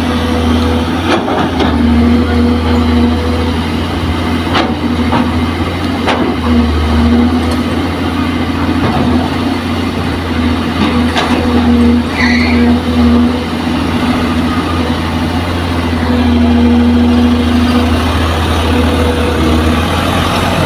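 Diesel engines of a Kobelco excavator and a dump truck running steadily, the excavator's note swelling and easing as it digs and swings. A few sharp knocks of soil and rock landing in the steel truck bed.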